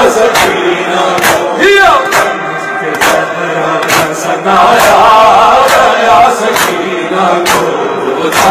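Male voices chanting an Urdu noha together, over an even beat of hands striking chests (matam) about once a second.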